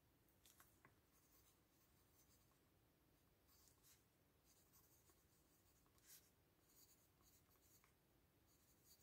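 Very faint scratching of a pen writing on paper in short, irregular strokes, close to silence.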